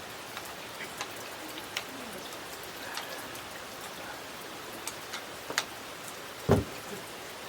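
Steady rain falling, with scattered drips ticking and one louder thud about six and a half seconds in.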